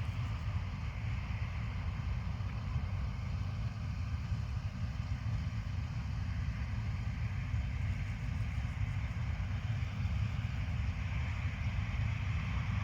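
Combine harvester running steadily at work: a continuous deep engine drone with a broad mechanical whirr from the threshing and harvesting machinery.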